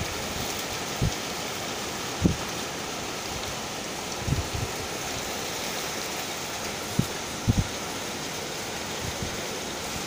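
Heavy downpour hissing steadily, driven by strong wind, with a few short low thumps of wind buffeting the microphone.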